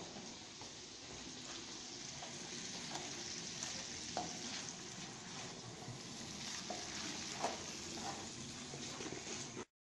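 Diced bacon sizzling in olive oil in a large frying pan, stirred with a wooden spatula that gives a few light scrapes and clicks. The sizzle is steady and cuts off suddenly near the end.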